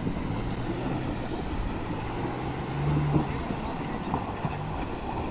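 Maruti Gypsy 4x4's engine running as it drives through a shallow river, water churning around its wheels, with wind on the microphone. The engine note rises briefly about three seconds in.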